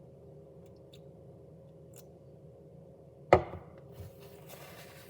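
Popsicle stick knocking hard against the mixing bowl while stirring dough: one sharp knock with a short ringing tail about three seconds in, a smaller knock just after, then a brief rustling scrape.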